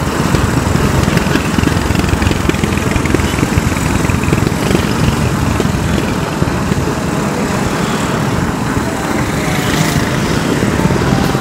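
Wind buffeting the microphone of a moving e-bike, a loud steady rumble, mixed with the engine noise of motorcycle sidecar tricycles in the traffic ahead.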